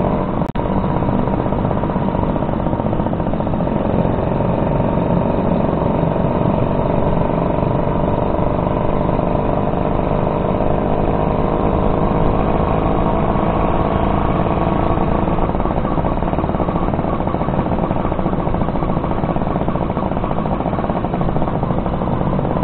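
Suzuki RC100 Bravo's two-stroke single-cylinder engine running under way, its pitch climbing a little over the first several seconds and then holding steady, over wind and road noise. A brief click about half a second in.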